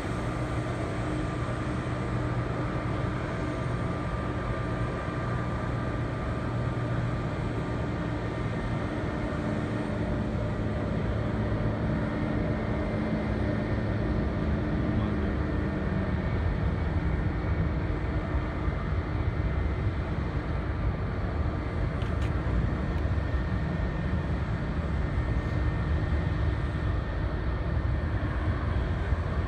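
Steady airport apron noise: a low engine rumble with a few steady hums, one of which drops in pitch about halfway through, while a regional jet is pushed back by a tug.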